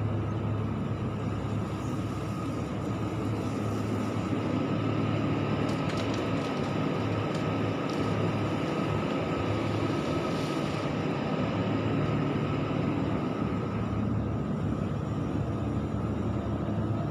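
Hyundai 140W-9S wheeled excavator's diesel engine running steadily while loading gravel, with a steady high tone over the engine hum. A few sharp clicks come about six to seven and a half seconds in.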